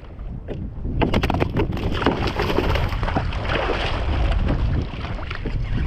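A small California halibut splashing at the surface beside a kayak on a short line while the angler works to unhook it, a choppy run of splashes starting about a second in and easing off near the end. Wind rumbles on the microphone underneath.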